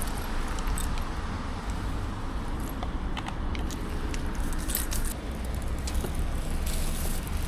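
Ride noise from a Kugoo F3 Pro Max electric scooter: a steady low rumble with scattered light clicks and rattles.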